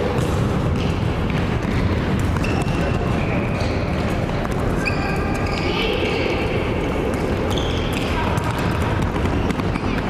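Futsal ball being kicked and bouncing on a gym floor, with short high squeaks of players' shoes and indistinct calls from players and bench, all echoing in a sports hall.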